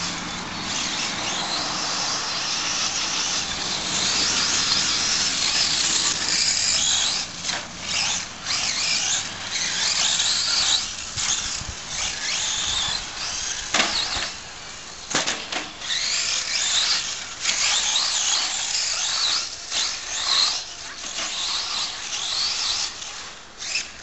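Radio-controlled short-course truck running on a dirt track: a high-pitched whine that rises and falls in pitch as it speeds up and slows, cutting out briefly several times. There are two sharp knocks about halfway through.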